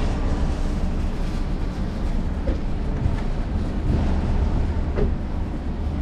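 Wind buffeting the microphone: a steady low rumble.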